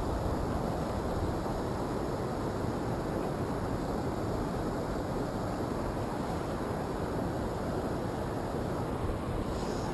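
Steady rushing of a mountain stream's flowing water, an even noise that stays level throughout.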